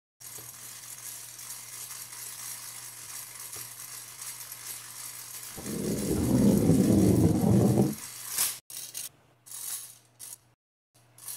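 Hand-cranked rotary eggbeater rattling mechanically over a faint steady hiss and hum. About five and a half seconds in it rattles loudly for about two seconds, then gives several short rattles with gaps between them.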